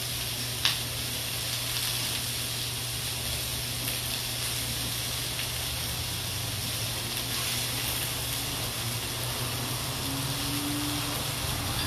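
Meat skewers sizzling steadily on a grill pan, with a single sharp click, like tongs against the pan, a little under a second in.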